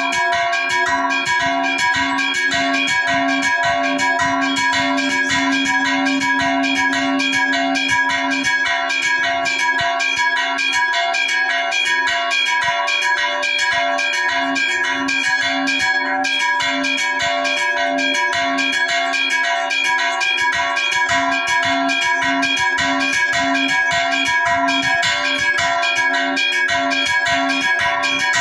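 Church bells being rung in a rapid, continuous festive peal (repique), several bells struck in quick succession with their tones ringing on over one another.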